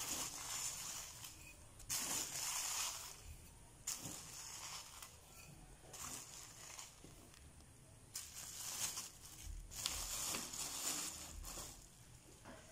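Plastic bag crinkling and a metal spoon scooping dry breadcrumbs from a plastic tub, the crumbs spilling onto a plate, in several separate rustling spells.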